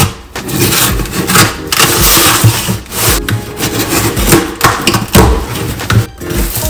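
A box cutter slicing through packing tape along a cardboard shipping box, with repeated scraping and rasping strokes. Near the end the cardboard flaps are pulled open.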